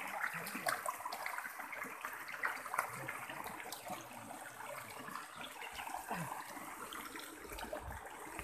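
Shallow river water running and trickling over rocks, a steady rushing, with scattered light knocks and splashes from people wading barefoot among the stones.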